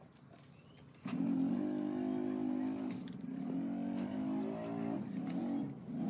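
A motor starts up abruptly about a second in and runs with a steady pitched drone, dipping briefly twice.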